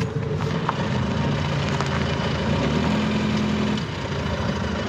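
Renault van's engine running at low speed, a steady hum whose note rises slightly about two and a half seconds in, holds, then eases off just before four seconds.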